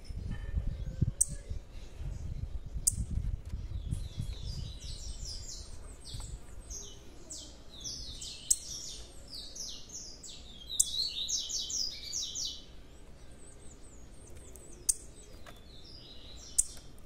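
Young blue-black grassquits (tiziu) chirping: a run of quick, short high twittering notes through the middle, with a few sharp clicks scattered through it and a low rumble in the first few seconds.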